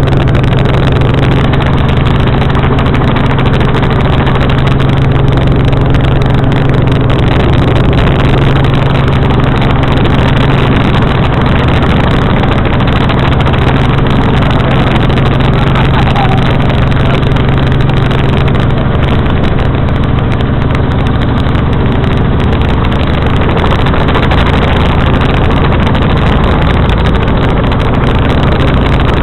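Helicopter running, a loud, steady drone with an even low hum throughout.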